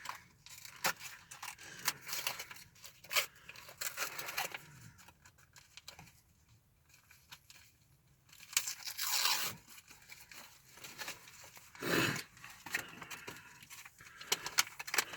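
A candy bar wrapper being opened: crackly crinkling throughout, with two louder tearing sounds, the first about two-thirds of the way in and the second near the end.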